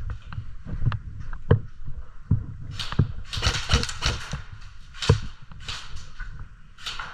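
Airsoft player moving in gear, with knocks, thuds and footsteps on the camera, and from about halfway through a run of short, sharp hissing bursts.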